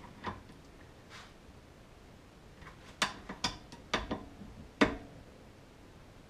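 Wrench tightening the cover bolts of an Arctic Cat primary clutch in a cross pattern. A cluster of about six sharp metal clicks comes between roughly three and five seconds in, the last one the loudest.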